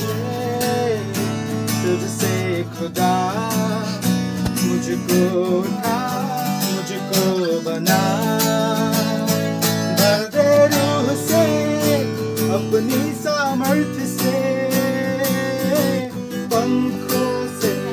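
A man singing a slow melody while strumming chords on a steel-string acoustic guitar.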